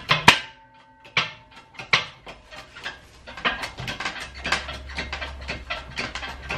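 Hydraulic shop press pressing a Honda Civic front hub back into its spindle. A sharp metal clank with ringing just after the start, then scattered clicks, and from about halfway a fast run of ticks.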